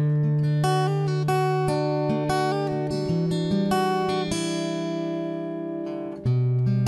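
Background music: an acoustic guitar picking a melody, one note after another over held bass notes, moving to a new bass note about six seconds in.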